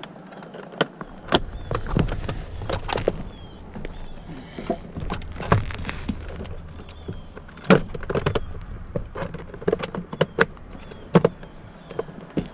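Plastic steering-column trim pieces being handled and pressed back into place: irregular sharp clicks and knocks, with a low rumbling handling noise underneath.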